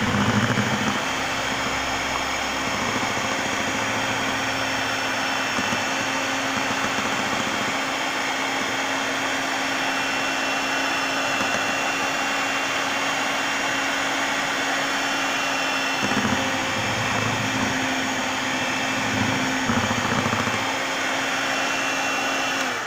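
Electric hand mixer running steadily on its lowest speed, its beaters churning cake batter to break up lumps of flour. The motor cuts off right at the end.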